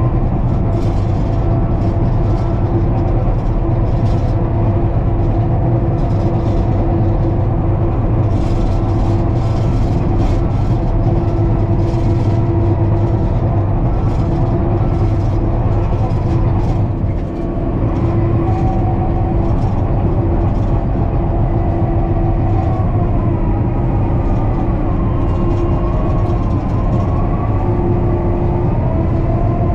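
John Deere 550K crawler dozer's diesel engine running steadily while grading, with intermittent clatter. About 17 seconds in it briefly drops, and in the second half a higher whine rises and falls.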